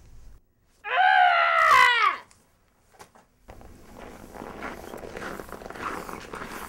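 A loud human scream lasting about a second and a half, falling in pitch as it dies away. After a brief silence, a faint steady background murmur follows.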